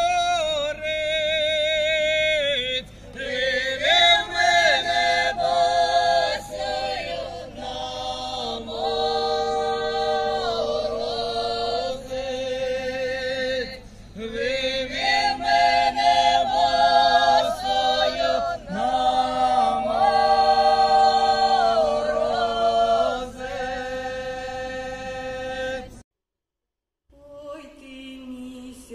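A group of women singing a Ukrainian folk song in harmony, unaccompanied, with long held notes. Near the end the singing cuts off for about a second, then comes back more quietly.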